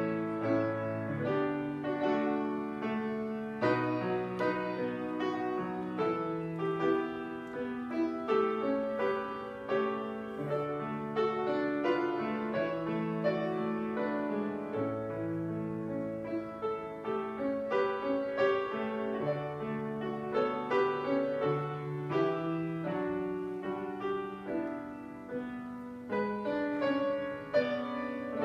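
Solo piano playing slow chords, with a new note or chord about every second.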